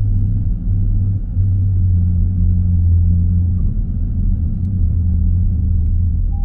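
A vehicle engine idling steadily: a loud, low, even rumble.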